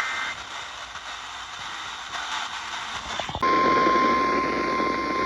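Receiver hiss between broadcast alerts, with a short burst of data tones right at the start, the tail of the SAME digital end-of-message code. About three and a half seconds in, a single steady high-pitched alert tone starts abruptly: the 1050 Hz NOAA Weather Radio warning alarm that opens the next warning.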